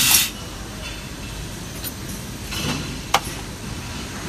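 Automated assembly machine at work over a steady factory din: a short, loud hiss at the start, then one sharp metallic click about three seconds in.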